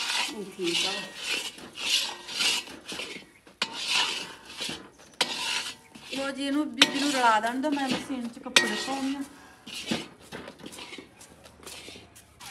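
A metal spatula scrapes and stirs a thick, crumbly pinni mixture around a large metal karahi, with repeated strokes about once a second.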